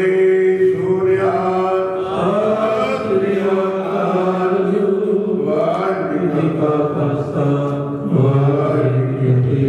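Devotional Punjabi singing in the style of a Sikh shabad: a voice holding long, drawn-out notes that glide between pitches over a steady drone accompaniment.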